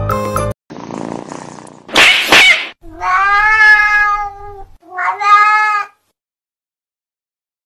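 Cat hissing, with a loud sharp hiss about two seconds in, then a long drawn-out yowl and a shorter second yowl. A snatch of jingly music cuts off at the very start.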